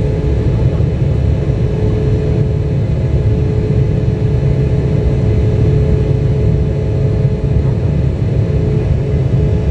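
Turbofan jet engine and airflow heard inside an airliner cabin during the climb after takeoff: a steady low rumble with a constant droning tone.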